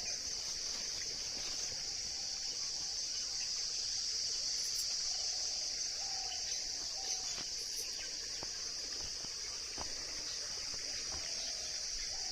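Steady, high-pitched, unbroken drone of insects in the field, with a few faint short calls from other animals now and then.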